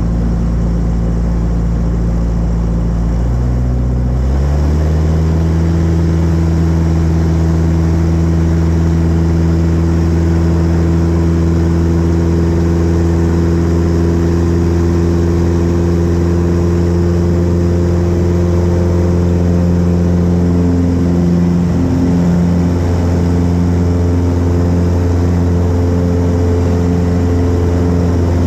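Pitts S-1C biplane's piston engine and propeller heard from the open cockpit, running steadily, then throttled up about four seconds in and holding a steady, higher-pitched drone at high power.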